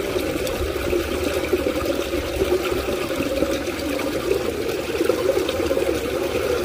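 Steady rush of running water pouring into a small ditch.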